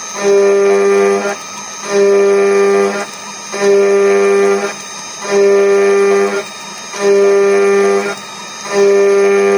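CNC router spindle at 12,000 rpm driving a 4 mm two-flute HSS end mill through aluminium: a steady high-pitched whine that cuts in for about a second and drops away for half a second, six times over, as the tool makes repeated passes through the plate.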